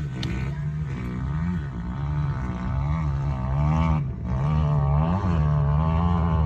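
Off-road side-by-side engine running close by, its revs rising and falling in a steady wavering pattern.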